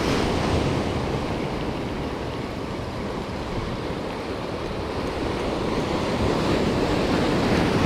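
Ocean surf breaking and washing over jetty boulders: a steady rushing that eases a little, then swells again near the end. Wind rumbles on the microphone underneath.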